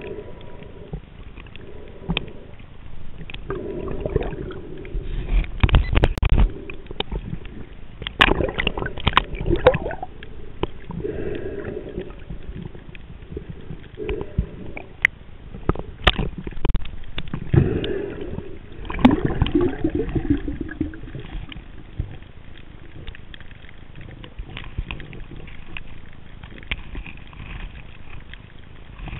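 Water gurgling and sloshing around a head-mounted camera as a snorkeler swims, with irregular knocks and swells that are loudest in the middle stretch and settle to a steady low wash near the end.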